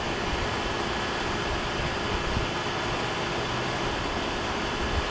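Wind blowing across the microphone: a steady rush with low rumbling buffets.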